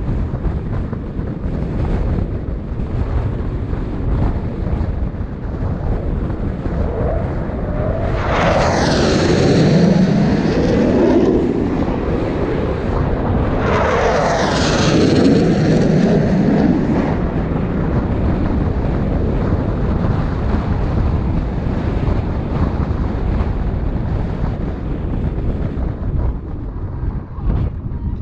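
Two F-15 fighter jets passing low overhead one after the other, each a loud jet rush that swells and fades over about three seconds with a sweeping, shifting pitch, the second about six seconds after the first. Under them runs steady wind and road noise from the moving car.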